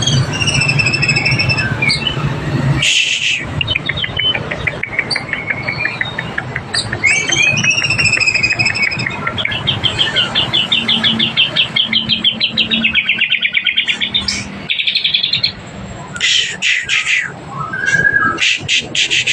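White-rumped shama in breeding condition singing its courting song: a fast, varied stream of clear whistled phrases, rapid rattling trills and several short harsh buzzy notes.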